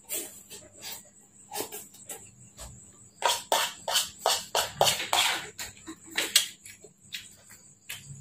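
Close-up mouth sounds of a person eating fried instant noodles: a run of short wet clicks and smacks from chewing, sparse at first and thickest in the middle.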